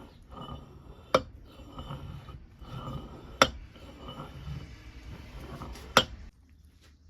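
Metal parts of a bench vise being worked by hand: three sharp metallic clanks, about two and a half seconds apart, with rubbing and scraping between them. The sound cuts off suddenly shortly before the end.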